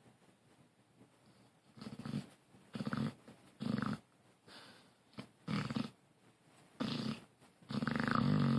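Snoring: about six short, rattling snores starting about two seconds in, roughly one a second. The last one is the longest and loudest.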